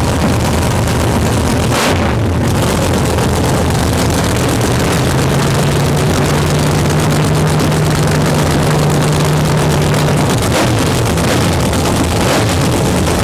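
The Super Camaro nostalgia funny car's nitro-burning V8 running loud and steady through open zoomie headers, the cackling idle of a stationary fire-up.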